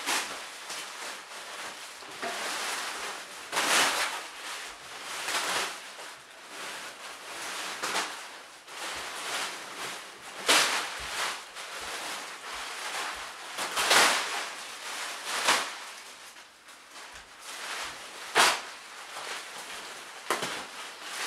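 Thin plastic wrapping rustling and crinkling in irregular bursts as it is peeled and pulled off a mattress, with several sharper, louder crackles.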